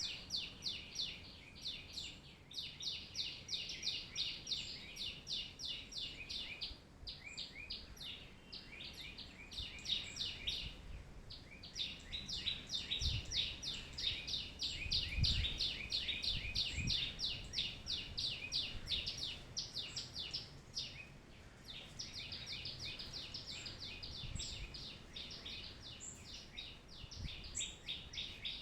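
Sparrows chirping, a rapid, dense run of short high chirps, several a second, with brief pauses now and then.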